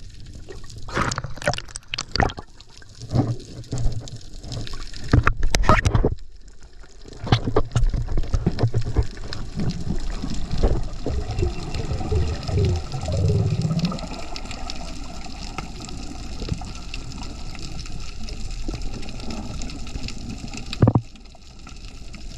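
Splashing and rushing water: a run of sharp splashes or knocks through the first few seconds, then a steady rush of water with a single sharp hit near the end.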